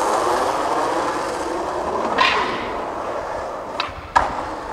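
Skateboard wheels rolling on asphalt, a steady rolling noise that slowly fades, with a short rougher patch about two seconds in and two sharp clacks near the end.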